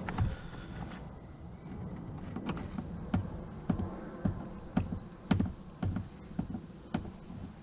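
Short clicks, about two a second, as a screwdriver turns the machine screws of a plastic inspection port ring down into nuts held inside the boat's hull. A faint steady insect chirring runs underneath.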